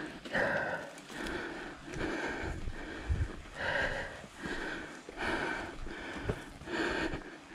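A person breathing hard close to the microphone: steady, even breaths in and out, each rush of air under a second long, with a couple of dull thumps.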